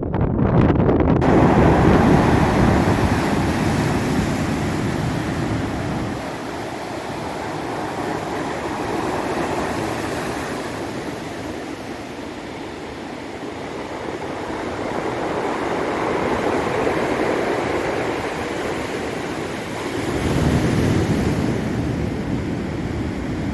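Ocean surf washing against rocks, a steady hiss that swells and ebbs every several seconds. Wind gusts buffet the microphone with a low rumble at the start and again near the end.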